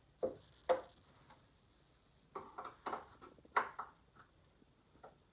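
Irregular clicks and knocks of parts being handled and fitted while assembling a speaker: two sharp knocks at the start, a quick cluster of taps in the middle, then a couple of faint clicks.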